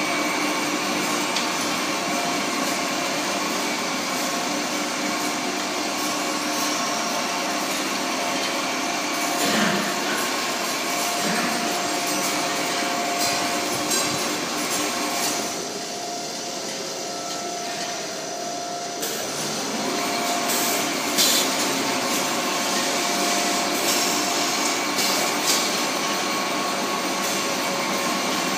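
Angeli AV-TZ vertical rotary wire coiler running: a steady mechanical whir with several steady tones under a hiss. The hiss thins for a few seconds about halfway through, and a few short clanks come in the last third.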